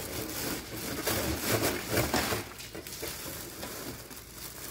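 Plastic bag of crushed ice crinkling, with the ice rattling as it is tipped into a freezer's ice-maker bin. The noise comes as irregular short scrapes and rustles, loudest between about one and two and a half seconds in.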